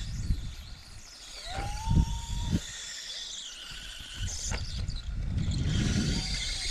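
Ride trolley rolling along the steel rail of a suspended tree-top ride, with wind buffeting the microphone in low rumbling gusts. A brief high squeal rises and holds from about a second and a half in.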